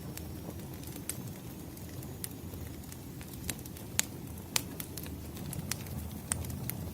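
Wood fire burning: a steady low rumble with scattered sharp crackles and pops, the loudest about four seconds in and again half a second later.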